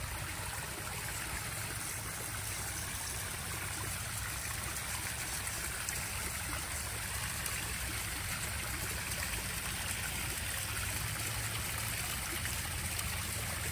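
Small garden waterfall spilling over stacked stones into a backyard pond: steady splashing and trickling water.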